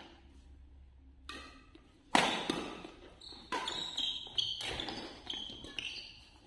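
Badminton rally: a series of sharp racket hits on the shuttlecock, the loudest about two seconds in, then several more in quick succession, mixed with short squeaks of shoes on the hall floor. The hits echo in the large hall.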